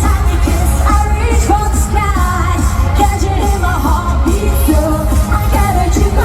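Live Eurodance pop music played loud over a concert PA: a heavy, steady bass beat under a melodic lead line with singing.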